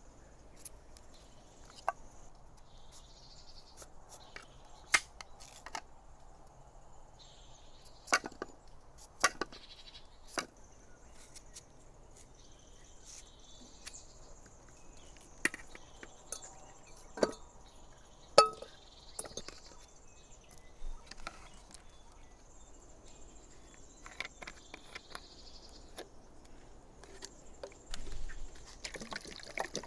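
Knife cutting into a raw peeled root, with chunks knocking onto an enamel plate and into a metal pot: scattered sharp clicks and knocks at uneven intervals. Insects chirp steadily behind, and near the end there is a short louder rush of noise.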